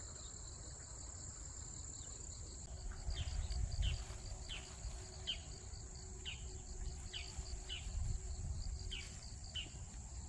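Autumn insects, crickets among them, trilling steadily at a high pitch. From about three seconds in, a bird repeats short falling call notes, one or two a second, over a low rumble.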